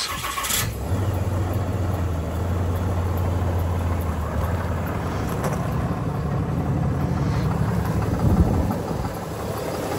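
Ram 2500's Cummins 6.7-litre straight-six turbo diesel cold-starting after days in freezing weather and settling into a steady idle, sounding clean.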